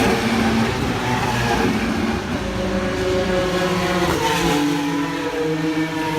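IndyCar race cars running at speed, their engines revving with shifting pitch.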